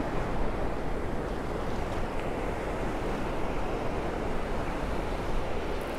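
Ocean surf washing steadily around the wader, mixed with wind rumbling on the microphone.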